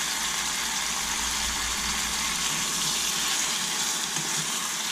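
Ground beef frying in a saucepan: a steady sizzle that does not break.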